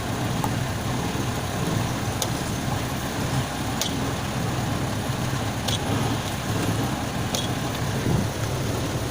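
Engine-driven red-brick making machine running steadily with a low mechanical hum, with a sharp click about every second and a half to two seconds.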